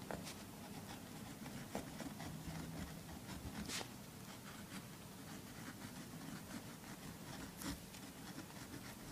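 Faint scratching of a feather quill pen writing a name on lined notebook paper, with a few brief louder scrapes along the way.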